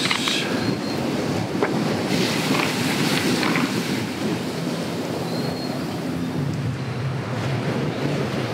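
Sparkling water poured over ice in a glass, fizzing and popping, with a few sharp clicks of ice in the first few seconds. Sea waves wash steadily throughout.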